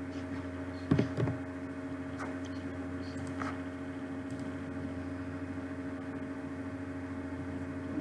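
Steady background hum with several held tones, broken by a low knock about a second in and a few faint mouse clicks.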